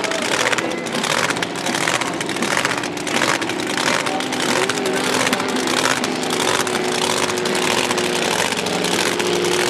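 Supercharged drag-racing V8 engines, loud: first a rough full-throttle run that surges in waves, then from about six seconds in an engine holding a steady drone.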